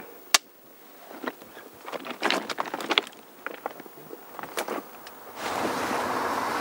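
A film clapperboard snaps shut once, a sharp single clap just after the start as the take begins. It is followed by scattered small crackles and rustles, and near the end a steady rushing noise starts abruptly.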